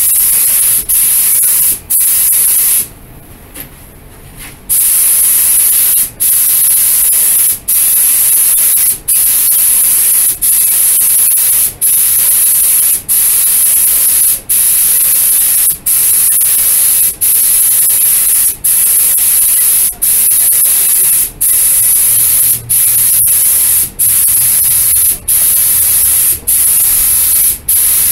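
Compressed-air paint spray gun hissing as it lays the second coat of base-coat paint. The spray stops for a split second about every second and a half as the trigger is let off between passes, with one longer pause of nearly two seconds near the start.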